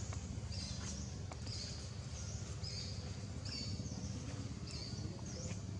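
A bird calling over and over: short, high chirping notes with quick pitch sweeps, about once a second, over a steady low rumble.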